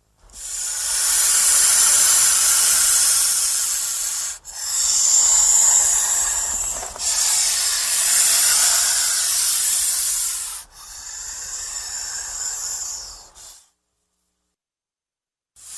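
A snake hissing in four long hisses of a few seconds each, one after another, the last one quieter, then silence near the end. It is the snake's defensive warning when it feels threatened.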